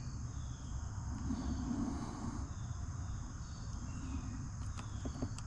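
Outdoor rural ambience: a steady high-pitched insect-like chirring over a low rumble, with a few faint clicks near the end.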